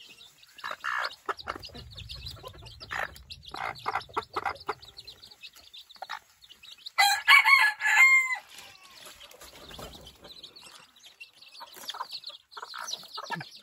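Bantam hen clucking and her chicks peeping as they feed, in many short calls. About seven seconds in comes one loud, drawn-out chicken call lasting a little over a second and dropping in pitch at its end.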